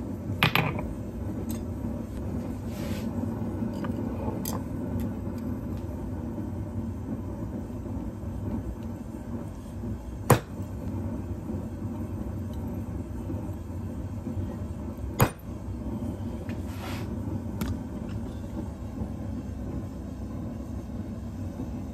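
Propane forge burner running with a steady low rumble, with a few scattered metal strikes on the anvil as the hot steel blade is forged. The two loudest sharp strikes come about ten and fifteen seconds in.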